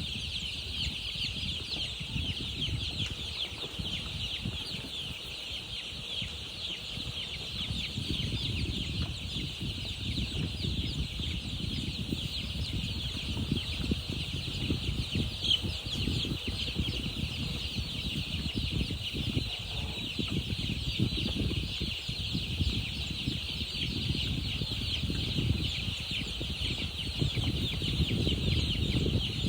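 A crowd of baby chicks peeping without a break, many high chirps overlapping, over a low, irregular rustling and knocking.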